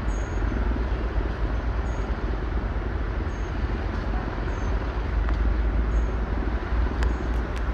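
Steady low rumble of heavy diesel machinery running, from the mobile crane at work assembling the tower crane.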